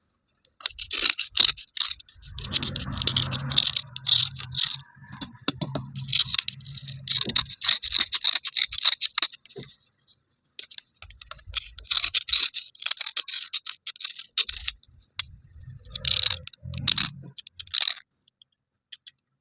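Broken slate pencil pieces being rubbed and scraped dry, a gritty scratchy sound in rapid strokes. It pauses briefly about ten seconds in and stops shortly before the end.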